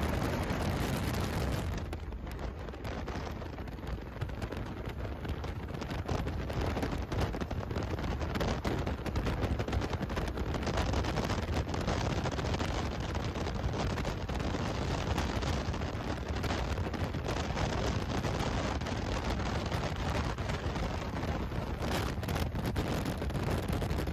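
Wind buffeting the microphone over a speedboat's twin outboard engines running at full speed, about 90 mph, a dense steady noise with irregular gusty thumps.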